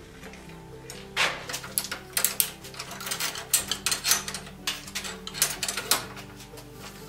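Rapid, irregular metallic clicking from a hand-operated hard rubber tire machine as its mechanism is worked, starting about a second in and stopping around six seconds, over background music.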